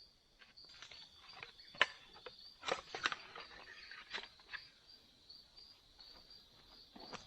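Insects chirring steadily in a high, pulsing drone, with scattered sharp knocks and rustles of sticks or gear being handled, a few of them louder about two and three seconds in.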